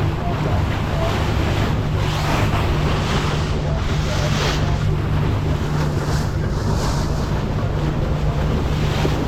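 A boat underway: its engine gives a steady low hum under water rushing and splashing along the hull in repeated swells, with wind buffeting the microphone.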